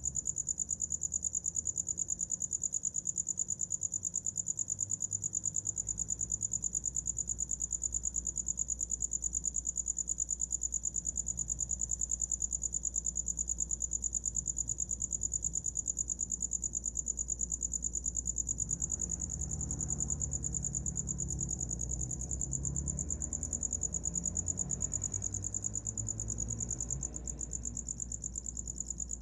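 A cricket chirping in a steady, fast, high-pitched trill that goes on without a break.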